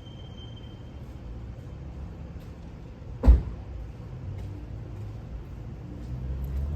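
A single sharp thump about three seconds in, over a steady low rumble.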